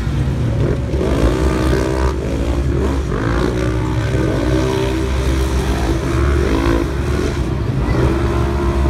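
Several side-by-side UTV race engines running together on a dirt track, their overlapping engine notes repeatedly rising and falling as the drivers get on and off the throttle, over a steady low rumble.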